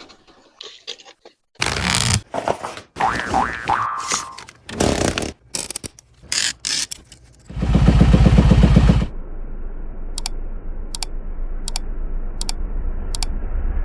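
Metal tools scraping and clicking on ATV suspension parts during a ride-height adjustment. About halfway through there is a loud buzzing burst of about a second and a half, then a steady low hum with faint ticks at regular intervals.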